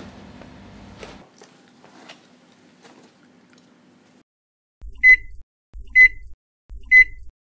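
Three short electronic countdown beeps, one a second, each a single high tone with a low rumble under it, the loudest sounds here. Before them, faint room noise with a few light taps.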